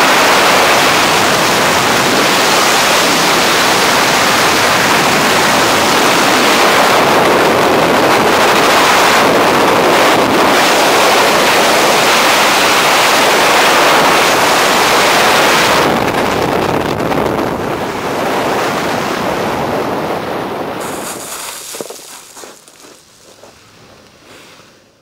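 Freefall wind rushing over a helmet camera's microphone, loud and steady. About sixteen seconds in it begins to fade as the parachute opens, falling away to faint, uneven wind noise under the open canopy near the end.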